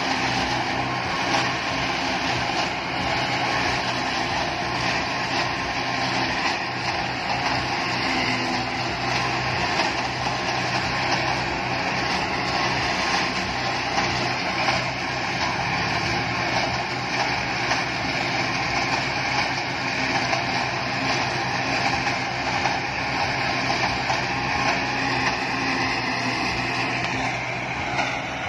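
Sonalika silage harvester running steadily: a continuous engine drone under a dense mechanical whirr.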